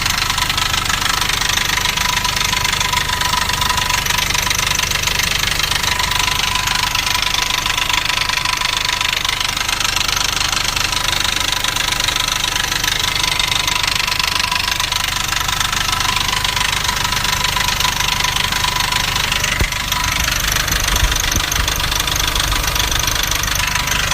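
Nissan Navara D40's 2.5 dCi four-cylinder turbodiesel idling with a steady fast clatter and a constant high tone over it. This rattle, which sounded like a dual-mass flywheel, was traced to a cracked intake manifold. A short low rumble comes in about twenty seconds in.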